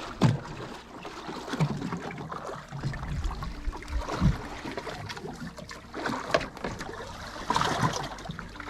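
Water trickling and sloshing aboard a small boat, with scattered knocks and clatter of gear being handled over a low steady hum.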